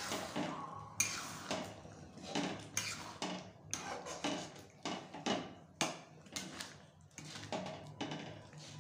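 Metal spatula scraping and knocking against a metal kadhai while stirring thick spinach saag, in repeated irregular strokes about one or two a second.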